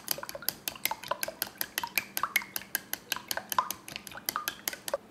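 Egg being beaten in a glass bowl with a thin wooden utensil: rapid, even clinks against the glass, about six a second, each with a brief ring, stopping just before five seconds in.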